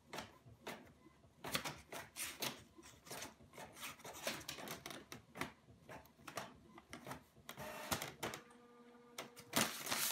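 All-in-one inkjet printer running: irregular clicks and clacks from its paper feed and print head, with a brief steady motor whine about eight seconds in.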